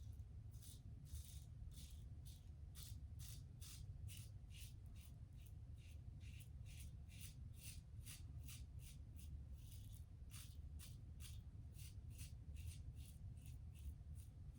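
Safety razor scraping through stubble in short, quick strokes, about three a second, each a faint dry rasp: a vintage Gillette Tech fat handle fitted with a 3D-printed base plate, mid-shave.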